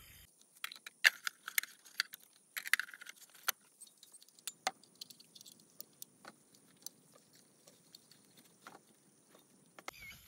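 Camping gear being packed up from a metal folding table: a string of sharp clinks, knocks and rattles as bottles, containers and cooking things are picked up and handled. The clatter is busiest in the first few seconds and then thins to scattered knocks.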